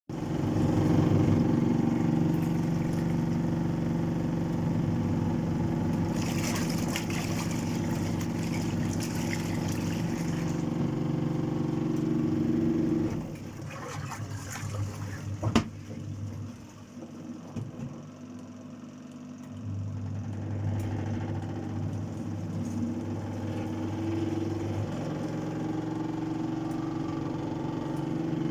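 Washing machine running: a steady motor hum that drops off about halfway through, a sharp click, then the motor picks up again a few seconds later and runs steadily.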